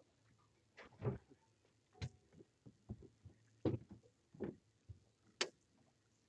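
Faint, scattered knocks and thumps on a fishing boat's deck, about eight or nine at irregular spacing: footsteps and bumps as a person moves about and climbs onto the front deck.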